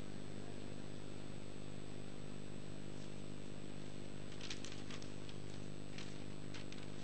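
Steady low electrical hum from the sound system, with a few short crackling rustles about four and a half and six seconds in as the poem sheet is handled.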